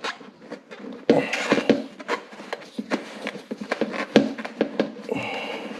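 Black plastic motorcycle airbox and its rubber intake tube being handled and worked loose by hand: irregular knocks and taps of hard plastic with rubbing and scraping between them.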